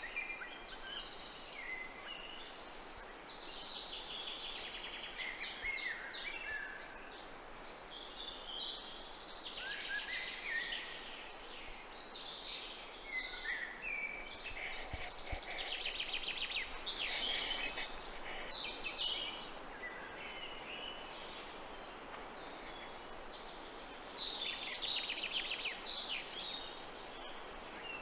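Several wild songbirds singing and calling with many short chirps and trills. Through the middle part a long, very high, fast-pulsing buzzy trill runs on and stops near the end.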